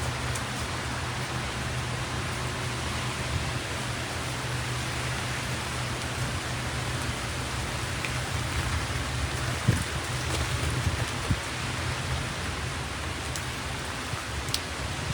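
Steady rain of a thunderstorm downpour, with a few sharp drop ticks now and then.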